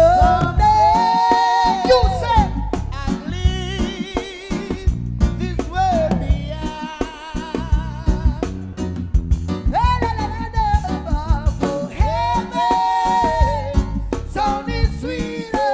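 Live band playing a reggae groove with a singer's voice carrying the melody. The drum kit is heard up close, its beats and cymbals prominent in the mix.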